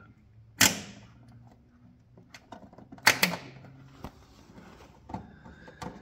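Metal clicks and light clattering from a metal wiring-harness retaining clip being worked into place by hand. One sharp click comes about half a second in and a close pair about three seconds in, with smaller ticks between.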